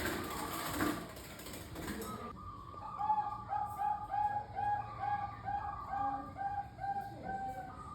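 Zebra dove (perkutut) singing: a long run of quick, evenly repeated cooing notes, about two and a half a second, starting about two and a half seconds in. The first two seconds are covered by a loud hissing noise.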